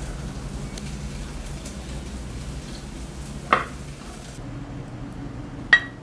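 Two sharp clinks of tableware, glass and ceramic, a couple of seconds apart; the second rings briefly. Under them is a steady hiss whose upper part drops away about four seconds in.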